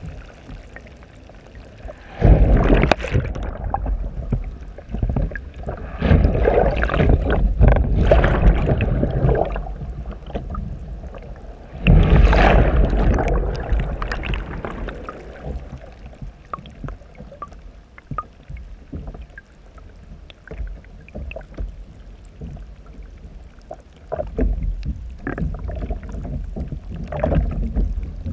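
Churning, bubbling water rushing past a kayak's hull, heard muffled through a camera under the water. It comes in several loud, rumbling surges: about two seconds in, from about six to nine seconds, around twelve to fourteen seconds, and again near the end, with quieter gurgling between them.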